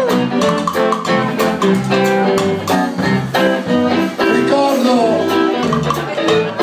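Live rock band playing: electric guitar over a drum kit, with steady drum and cymbal hits.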